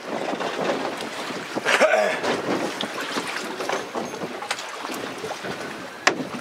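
Water lapping and splashing against a small boat's hull, with wind on the microphone and scattered knocks, one sharp knock near the end.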